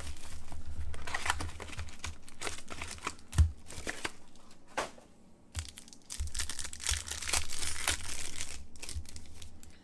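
Wrapping of a 2021-22 Upper Deck SPx hockey card pack being torn open and crinkled by hand, a run of irregular crackles and tearing.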